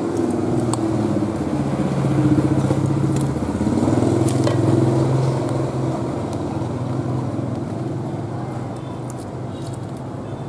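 A vehicle engine runs with a low hum. It grows louder about two to five seconds in, then slowly fades away.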